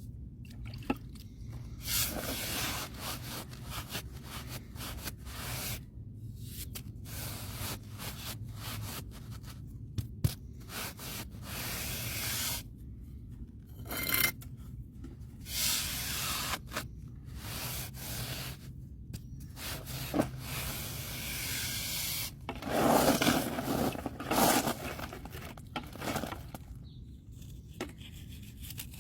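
Irregular scraping and rubbing of a tool against a hard surface, in strokes of varying length, loudest about three-quarters of the way through.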